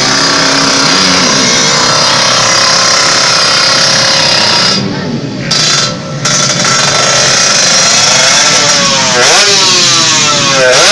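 Drag-racing motorcycle engines running loud, with two brief dips in the sound around the middle, then revving up and down repeatedly over the last few seconds.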